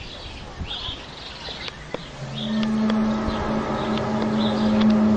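A steady, low, trumpet-like drone comes in about two seconds in and holds on one pitch, with birds chirping over it. It is one of the so-called 'sky trumpet' sounds, a sky-borne hum whose source is unknown.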